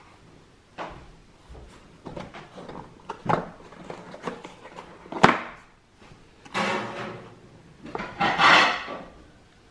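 Cardboard takeaway burger boxes being handled and opened: light taps and rubbing, a sharp snap about five seconds in, then two longer scraping rustles of cardboard sliding against cardboard near the end.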